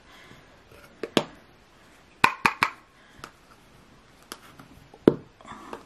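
A handful of light, sharp clicks and taps at irregular intervals, three in quick succession about two seconds in, from handling the loose setting powder jar and makeup brush while powder is being applied.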